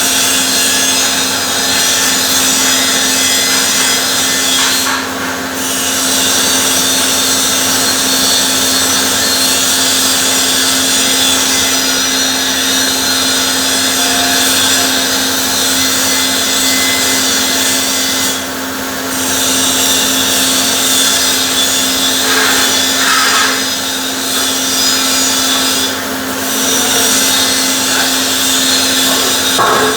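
Electric arc welding: the arc's continuous crackling hiss over a steady low hum, breaking off briefly three times, about five, eighteen and twenty-six seconds in.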